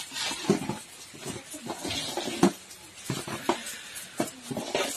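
Stirring in a large metal cooking pot of boiling rice, with irregular clinks, knocks and scrapes against the pot.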